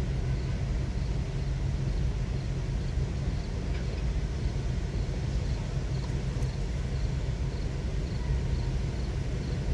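Steady low rumble of an idling vehicle heard from inside its cabin, with a faint regular ticking.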